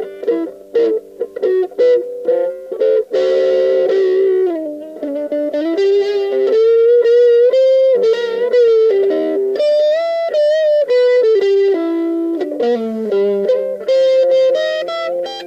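Electric guitar with an overdriven 'brown sound' tone playing boogie riffs: choppy, clipped notes for the first few seconds, then held single notes with bends and vibrato, climbing higher near the end.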